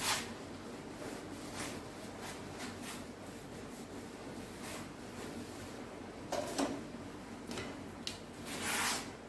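Whiteboard eraser wiping marker off a whiteboard: a series of short rubbing swishes, with a longer wipe near the end.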